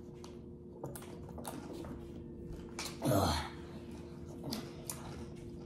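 Quiet chewing and crunching of a sandwich of Doritos and Funyuns, heard as scattered small crunches and clicks. About three seconds in there is a brief louder sound that slides down in pitch.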